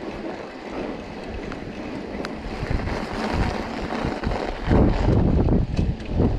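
Wind buffeting the microphone of a mountain biker riding through snow: a rough, rumbling gust noise that grows louder about three-quarters of the way in.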